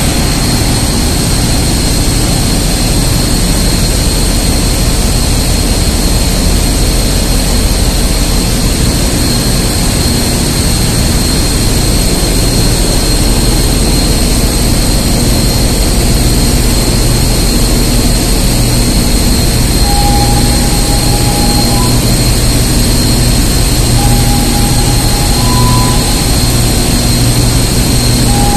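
Loud, steady engine-room machinery noise aboard a ship: a deep rumble of running machinery with a constant high whine. From about two-thirds of the way in, a short tone repeats every few seconds.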